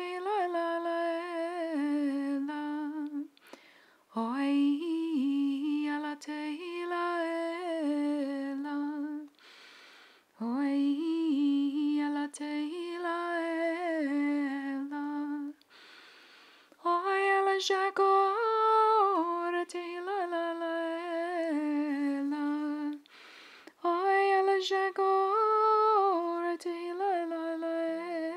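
A woman singing in tongues, unaccompanied: a slow, wavering melody in phrases of several seconds, with four short breaks for breath.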